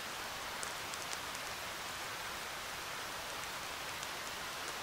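Steady hiss of a woodland stream running, with a few faint scattered ticks.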